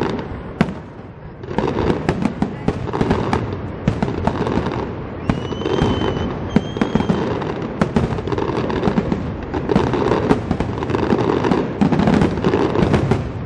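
Aerial fireworks bursting overhead in a dense, continuous barrage of crackling and bangs. Two short high whistles sound around the middle.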